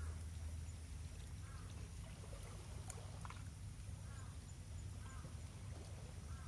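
Faint, short animal calls repeating every second or so over a steady low rumble.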